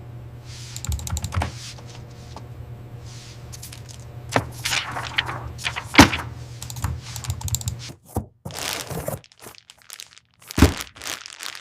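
A string of sharp knocks and thunks from work on metal parts, over a steady low hum. The hum stops about eight seconds in. The loudest knock comes about six seconds in, and another strong one near the end.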